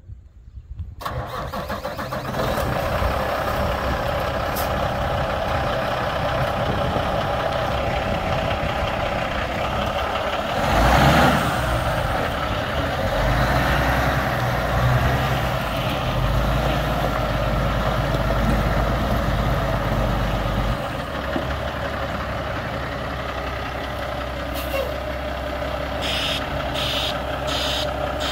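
Diesel engine of a 2010 Kenworth T660 day cab truck tractor idling steadily, with a brief louder burst about eleven seconds in. Near the end a series of evenly spaced beeps sounds over it.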